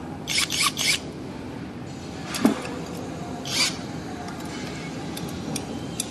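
Metal hardware on an electric scooter's folding stem being worked with a cordless drill/driver: three quick rasping scrapes in the first second, a sharp click about two and a half seconds in, and another short scrape about a second later.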